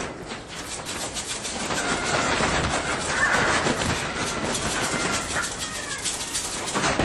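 Wire-mesh cages rattling with dense, rapid clicking as caged fur-farm animals move about and claw at the wire, with a few faint high calls in the middle.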